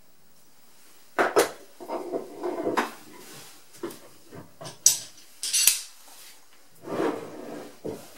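A heavy carved zelkova block being handled and shifted on a wooden workbench: irregular knocks and clatters with short scraping slides, the sharpest knocks about a second in and again near the middle.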